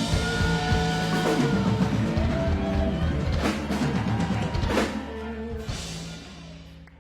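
Rock band playing an instrumental passage, drum kit, bass and guitar, with a few cymbal crashes, fading out over the last couple of seconds.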